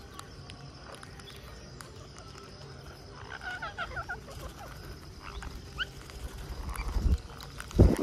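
Rose-ringed parakeets feeding at close range, beaks clicking and cracking peanut shells. About three seconds in, a bird gives a quick run of chirps, and a few short rising calls follow. Near the end there is a low rumble and a loud knock.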